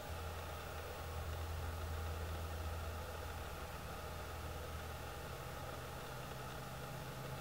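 A vehicle engine idling, a low steady hum over a soft hiss; the hum shifts slightly higher about five seconds in.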